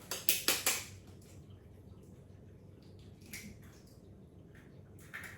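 A raw egg being cracked: four quick sharp taps of the shell against a bowl edge in the first second, then faint squishes and drips as the egg is broken open.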